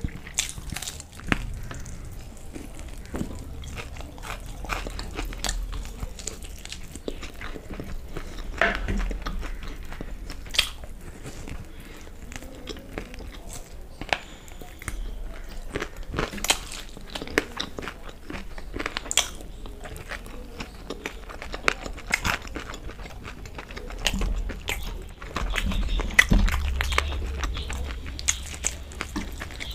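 A person biting and chewing fried chicken lollipops close to the microphone, heard as a stream of irregular short crunches and mouth clicks, busier and a little louder near the end.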